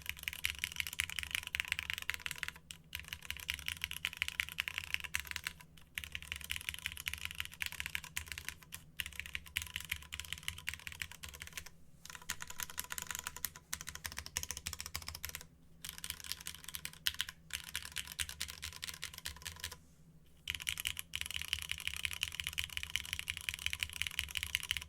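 Fast typing on a mechanical keyboard with linear Cherry MX Red switches in an aluminium plate and Aifei R2 keycaps: a dense run of keystrokes, broken by short pauses every few seconds and a longer pause about twenty seconds in.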